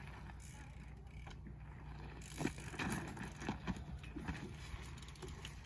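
Mountain bike and rider falling on a dirt track: a cluster of light knocks and rattles as the bike hits the ground, loudest about two and a half to three seconds in.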